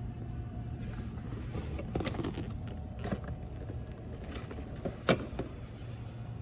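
A boxed set of metal barbecue tools being handled: a few clicks, knocks and rattles of the cardboard box and the tools inside, the sharpest about five seconds in. A steady low hum runs underneath.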